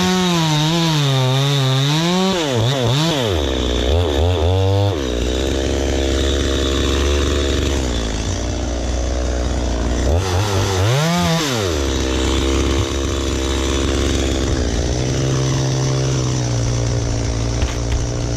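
Chainsaw revving high with a wavering pitch as it cuts, then dropping to a steady idle a few seconds in. It revs up again briefly about ten seconds in before settling back to idle.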